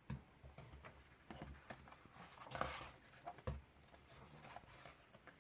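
Faint handling of a paper picture book: a few light knocks and taps, and a brief paper rustle about two and a half seconds in, as a page is turned.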